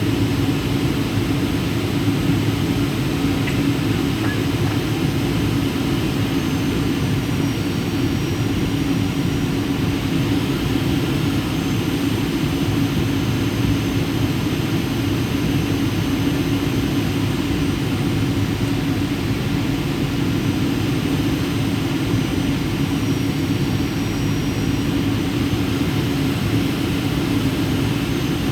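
Steady jet engine and airflow noise inside the cabin of a Boeing 737 on approach to landing, an even low drone with no change in level.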